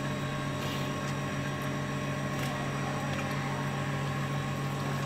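Steady low machine hum with a few faint soft clicks.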